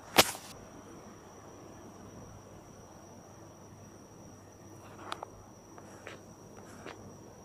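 A single loud knock just after the start as the phone is bumped while being handled, followed by a steady high-pitched whine and a few faint clicks.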